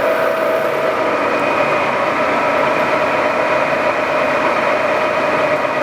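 Lagun FVA-5LA geared-head vertical milling machine running under power, a steady gear whine over a motor hum.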